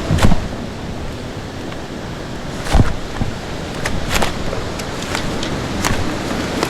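Steady rush of creek water with a handful of sharp, irregular knocks over it, the loudest near the start and about three seconds in.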